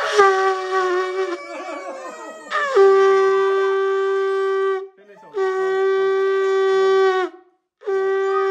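Conch shell (shankha) blown: a short note at the start, then three long, steady blasts of about two seconds each with brief breaks between them. Wavering voice calls overlap the first couple of seconds.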